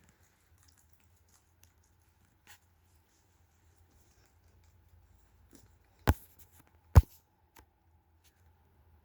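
Faint scratchy rustling and small clicks of guinea pigs moving about and nibbling, with two sharp, loud knocks about a second apart near two-thirds of the way in.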